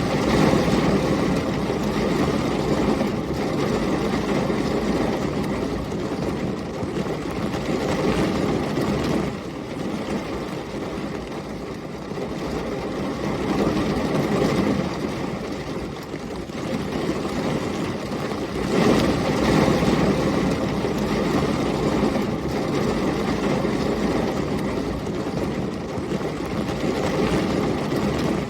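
Heavy rain with storm wind, a steady rushing noise that swells louder and eases off several times, loudest near the start and about two-thirds of the way through.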